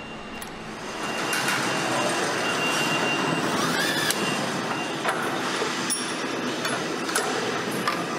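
Factory assembly-line noise: steady mechanical noise that grows louder about a second in, with scattered clicks and clinks and a short rising whine about four seconds in.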